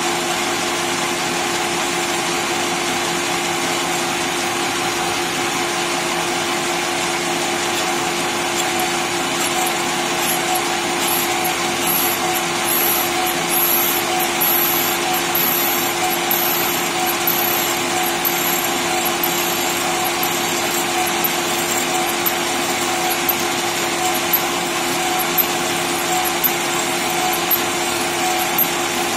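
Small CNC lathe drilling into a spinning metal bar with a turret-mounted twist drill: a steady whine from the spindle and drive, with the hiss of the drill cutting. A faint high squeal comes and goes in the middle, and sharp ticks sound about once a second near the end.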